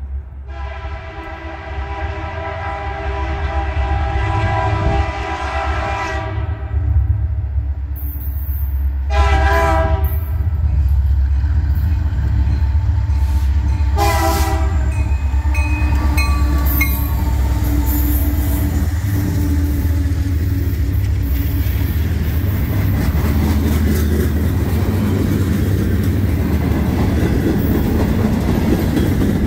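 Canadian National freight train's diesel locomotives approaching and passing, sounding a multi-note air horn: one long blast of about six seconds, then two short blasts, over a steady low engine rumble. After the horn, the freight cars roll by with a steady noise of wheels on rail and clickety-clack.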